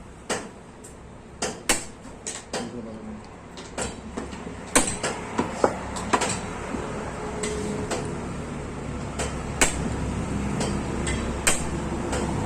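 Hammer tapping a nail used as a punch against an electric grinder's bearing seat, denting it all round so the loose bearing fits tight and its play is taken up: about fifteen sharp metal taps at uneven spacing.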